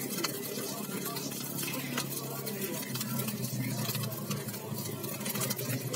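Metal spatula scraping and clanking against a large steel wok as fried rice and noodles are stir-fried, a quick run of irregular clicks and scrapes. A steady low hum runs underneath, growing stronger about halfway through.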